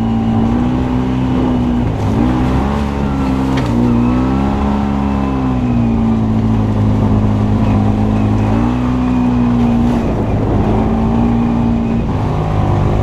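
Off-road vehicle's engine running hard under load, its pitch rising and falling several times as the throttle is worked.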